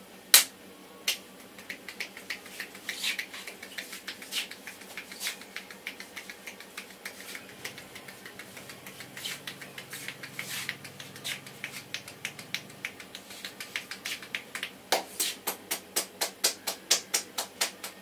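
Hand strikes of an Indian head massage: a long run of sharp slapping and tapping strikes on the head. One loud strike comes about half a second in, and the strikes turn into a fast, even run of several a second near the end.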